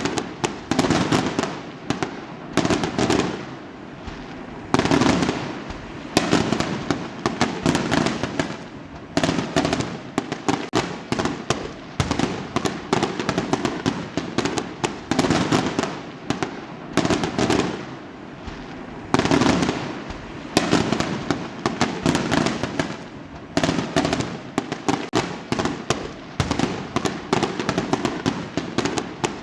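Fireworks going off in a dense barrage: rapid crackling bangs throughout, with heavier bursts every second or two.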